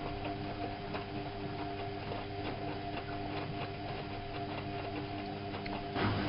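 Whirlpool AWO 5346 front-loading washing machine running, a steady hum with light irregular ticking. It grows louder near the end.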